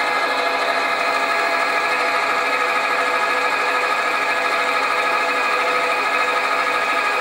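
Sieg bench lathe running steadily with a whine made of several steady tones, while a centre drill in the tailstock chuck centre-drills a brass bearing blank.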